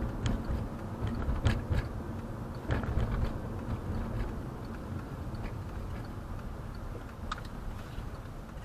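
Car cabin noise while driving: a steady low road and engine rumble, with a few sharp clicks scattered through it.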